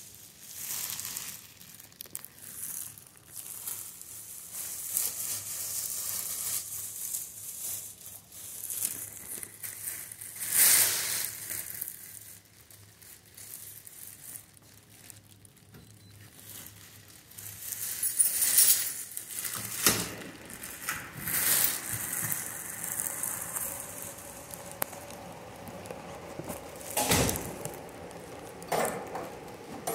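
Crinkling and rustling of a disposable plastic gown as the wearer moves, with scattered sharp knocks and clatters. Near the end, a loud clunk as a foot is pressed into a BootieButler shoe cover dispenser.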